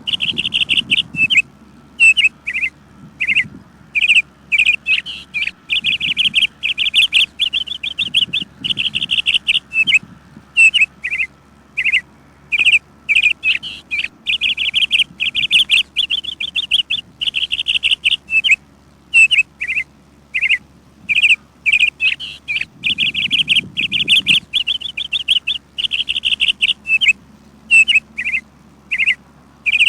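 Bird chirping in fast runs of quick, high chirps that come in bouts of a second or two, broken by short pauses.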